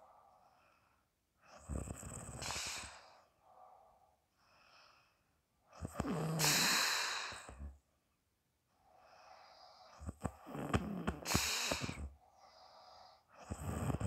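People snoring in their sleep: a loud snoring breath every few seconds with quieter breaths between, the loudest about six to seven seconds in.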